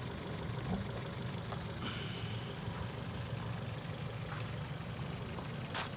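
Car engine idling steadily with a low hum, with a few faint, irregular clicks and a brief high tone about two seconds in.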